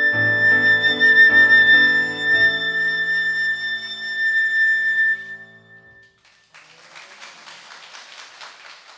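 Concert flute holding a long, steady final note over sustained grand piano chords, the close of the piece; both fade out about five to six seconds in. Then quieter applause starts about six and a half seconds in.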